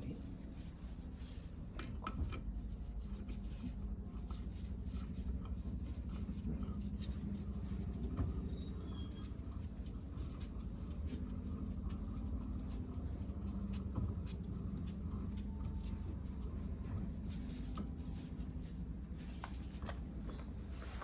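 Irregular small clicks and scrapes of hand tools and metal parts being handled while parts are removed from a scooter engine, over a steady low background hum.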